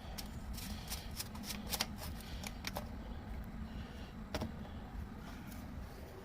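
Small hard parts being handled, giving a run of light clicks and ticks, most of them in the first three seconds and one more a little past four seconds in.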